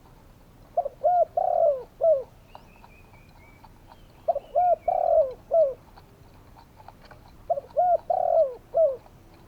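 Spotted dove singing its cooing song: three phrases of several short coos and one longer coo, repeated about every three seconds. A faint high twittering of a small bird comes in between the first and second phrases.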